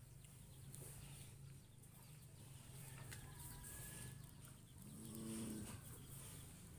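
Quiet cattle-shed ambience with faint, distant bird calls and one brief low animal call about five seconds in.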